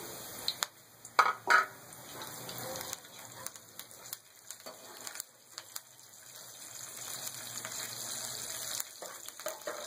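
Curry leaves and chillies sizzling in hot oil with cumin for a kadhi tempering, the sizzle growing louder toward the end. A few sharp knocks of a utensil against the steel pan come about a second in.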